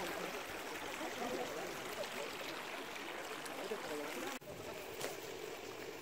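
A shallow stream running, with faint voices of a group of people. About four seconds in the sound breaks off abruptly and goes on as a slightly quieter steady hiss.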